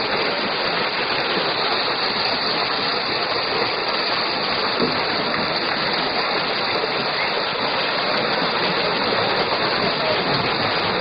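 A school of piranhas thrashing at the water's surface in a feeding frenzy: a steady, dense churning and splashing of water.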